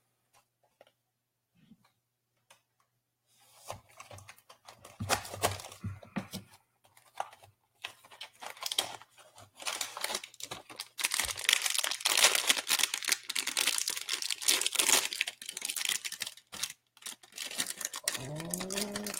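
Crinkling and tearing of a Dunny blind box's packaging being opened by hand. It starts as scattered rustles a few seconds in and becomes a loud, continuous crackle for the second half.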